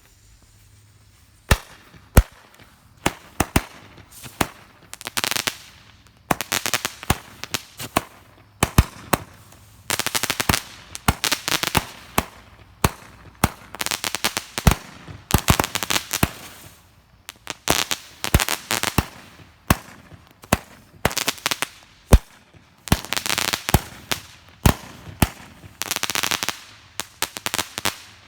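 36-shot consumer firework cake firing: a rapid string of sharp shots and bursts, about one a second or faster. Many are followed by a dense spray of crackling from the crackle effects. It starts about a second and a half in and stops shortly before the end.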